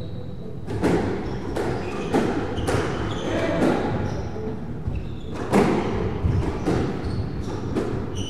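Squash rally: a rubber squash ball being struck by rackets and smacking off the court walls, a sharp crack every half second to a second, starting about a second in. Brief high squeaks of court shoes on the wooden floor come between the hits.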